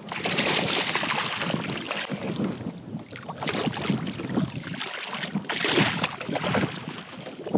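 Hooked redfish thrashing and splashing at the water's surface right beside a kayak, in several bursts.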